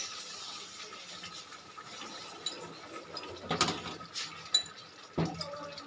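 A metal spoon clinking a few times against a steel karai as cumin powder is stirred into a simmering fish curry, with light, widely spaced taps.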